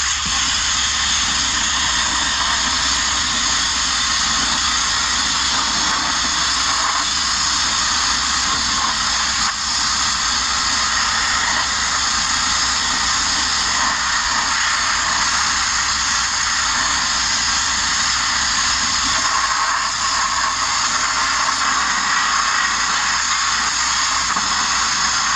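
Abrasive media blaster running continuously: a loud, steady hiss of compressed air and grit from the nozzle blasting the sheet-metal bodywork of a Mk1 Ford Transit van.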